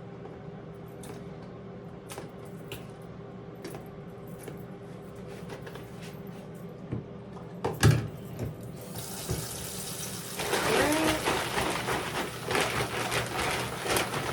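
Kitchen tap running into the sink: a steady rush of water that starts about nine seconds in and gets louder a little later. Before it there is a low steady hum with light clicks and one sharp knock.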